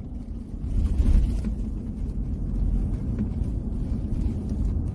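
Steady low rumble of a car on the move, heard from inside the cabin, growing louder about a second in.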